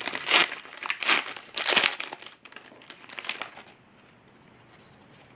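Hockey card pack wrapper crinkling as it is pulled open and handled, in a run of sharp rustles that stops after about three and a half seconds.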